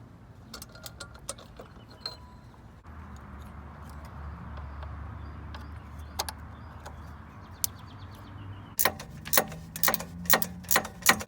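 Hand tools clinking on metal while an exhaust downpipe's bolts are tightened, ending in a quick run of loud, sharp ratchet-wrench clicks in the last couple of seconds. A low steady hum sits underneath in the middle.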